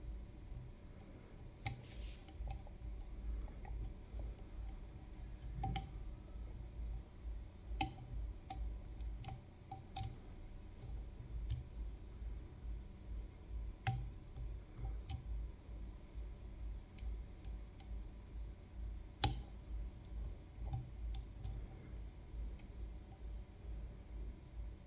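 CISA AP3 lock being picked: faint, scattered clicks of the pick and tension tool working the pins, coming at irregular intervals, with a few sharper clicks standing out.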